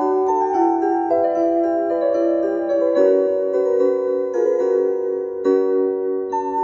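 Casio CPS-201 electronic keyboard played with both hands: a slow melody over held, overlapping chords in a sustained, bell-like preset voice.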